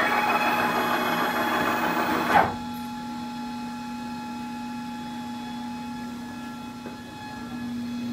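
Stepper motors driving the Y-axis ball screws of a home-built CNC router gantry, a dense mechanical whir with steady whining tones, which stops abruptly about two and a half seconds in with a short clunk. A quieter steady hum with a whine carries on after it.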